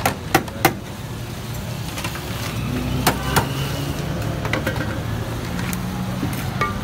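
Sharp clinks and knocks of a metal serving scoop and pot lid against large metal cooking pots, a few of them ringing briefly, over the steady rumble of street traffic.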